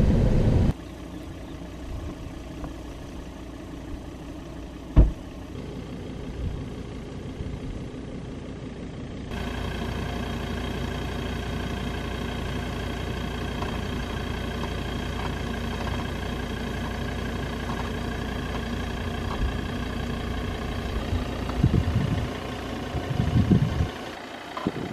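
A Ford Endeavour's 3.2-litre five-cylinder turbodiesel running steadily at low revs as the SUV crawls over a dirt mound. The first several seconds are a quieter hum with one sharp knock about five seconds in; the engine sound comes up louder and holds steady after that.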